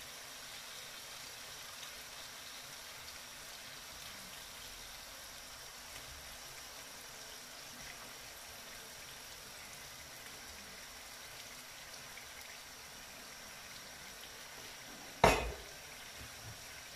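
Onion-tomato masala frying in a terracotta cazuela, a faint steady sizzle as raw chicken pieces are laid into it. One sharp knock about fifteen seconds in.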